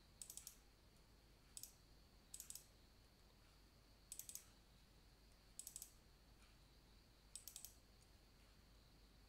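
Faint computer mouse clicking: about six short clusters of quick clicks, spaced a second or two apart, as folders are double-clicked open.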